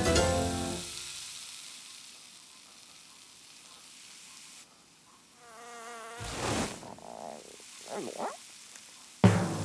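Cartoon sound effects. Music dies away in the first second, then a faint hiss. About five and a half seconds in comes a short warbling buzz, then a whoosh and a couple of quick swooping swishes, and near the end a sudden loud hit as the music comes back in.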